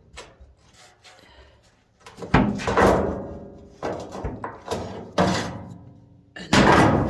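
Several loud knocks and thuds of hard objects being shifted and set down against the dryer, about two seconds in and then every second or so.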